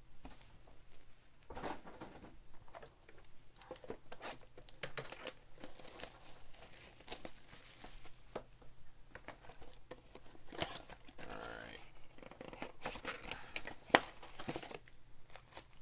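Foil trading-card packs crinkling and rustling as they are handled and spread out, mixed with cardboard mega boxes being torn open. There is a single sharp knock near the end.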